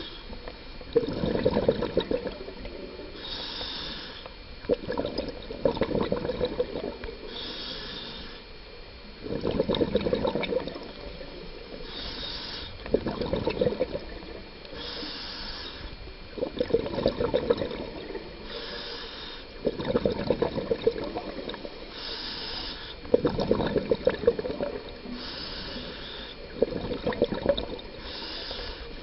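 Scuba diver breathing through a regulator: a short hiss on each inhale alternating with a louder gush of exhaled bubbles, about eight breaths, one every three and a half seconds or so.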